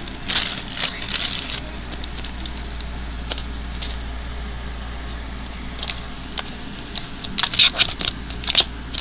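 Sticky slime being handled: crackling and squishing in bursts during the first second or so and again in the last few seconds, with a quieter stretch between and a steady low hum underneath.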